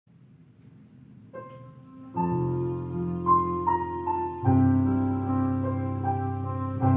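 Piano music fading in: a first note about a second in, then held chords with a melody of single notes above them, growing louder with a fuller chord about halfway through.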